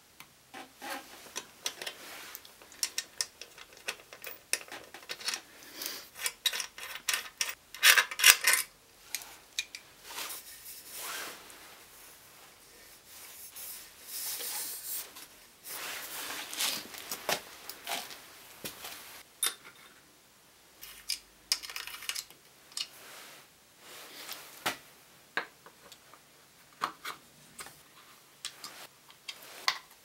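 Socket ratchet clicking and steel tools clinking as a spanner-and-ratchet rivet nut tool is turned to set M5 rivet nuts into a bike frame. The clicking comes in bursts with pauses between.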